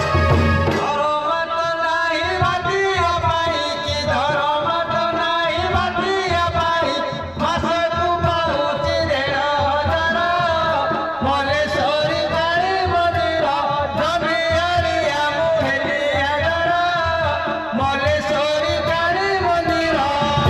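Danda nacha folk music: a wavering, ornamented melody line over drumming, playing without a break.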